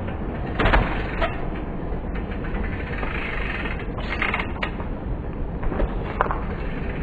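BMX bike landing a 180 on paving slabs with a sharp knock in the first second, then rolling on over the slabs with a few more knocks and rattles, over a steady hiss.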